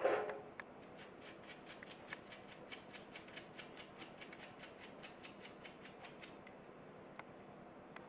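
Toothbrush scrubbing a small metal contact piece, a fast, even back-and-forth of scratchy bristle strokes, about five a second, that stops about six seconds in. A knock at the very start.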